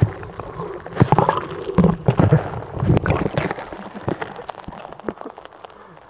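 Sea water heard by a camera held under the surface: gurgling and bubbling with many sharp clicks and knocks, busiest in the first half and thinning out toward the end.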